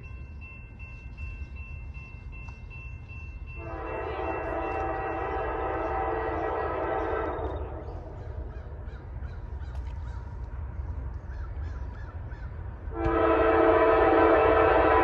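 Nathan K5LA five-chime air horn on an approaching CSX GE CW44AC locomotive, heard faintly at first, then one long blast about four seconds in lasting roughly four seconds, and a second, louder long blast starting near the end. A low steady rumble of the oncoming train lies underneath.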